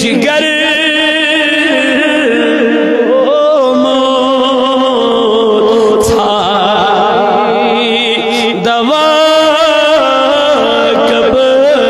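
A man singing a devotional naat into a microphone over a PA system, in long held notes that waver in pitch, with a brief break about two-thirds of the way in.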